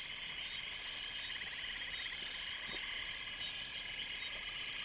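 Night chorus of frogs and insects: steady high-pitched calling with a regular pulsing of about five beats a second over faster trilling.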